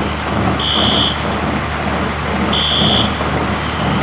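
Building fire alarm sounding a high-pitched beep about every two seconds, two beeps here, over a steady rushing noise and low hum.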